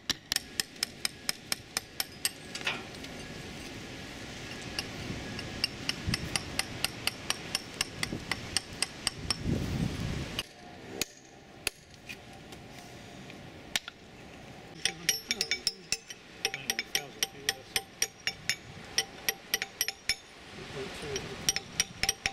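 Hammers striking chisels to chip the hard crust of concretion off a cannon, in quick sharp metallic taps about four a second. The tapping mostly stops for a few seconds partway through, then picks up again, with more than one hammer going.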